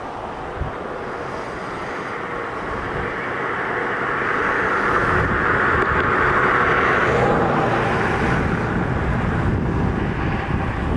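A passing motor: a steady rushing engine-like noise that swells to its loudest about halfway through and eases off near the end, over a low wind rumble on the microphone.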